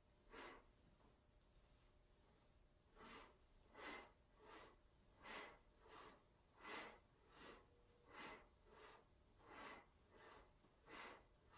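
A woman's faint, quick rhythmic breathing during a seated twisting kriya. She alternates inhales and exhales about every three-quarters of a second, in time with the side-to-side twist. The breaths stop for a couple of seconds near the start, then resume steadily.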